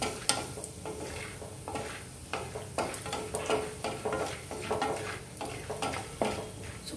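A wooden spatula stirring peanuts and roasted gram around a metal kadai in a little hot oil, in quick irregular scraping strokes over a light frying sizzle, as the nuts roast until they change colour.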